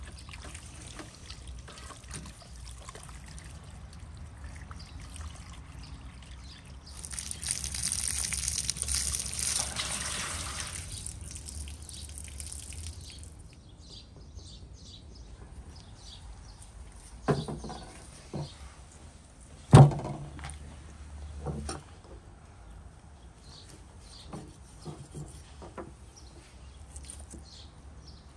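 Water running from a hose tap and splashing over raw lamb ribs on a metal tray, at its heaviest for about six seconds a quarter of the way in. Past the middle come two sharp knocks, the second the loudest.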